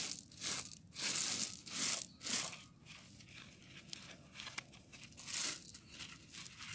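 Small white gravel crunching and scraping as it is spread level by hand, in a run of short bursts that thin out after about two and a half seconds, mixed with clothing rubbing close to the microphone.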